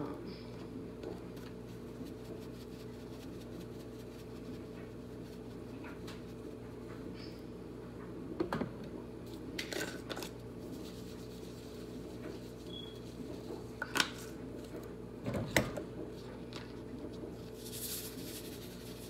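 Spices being shaken and ground over a roasting pan: a few short clicks and rattles from the containers and grinder, then a hiss of salt pouring from a canister near the end. A steady appliance hum runs underneath.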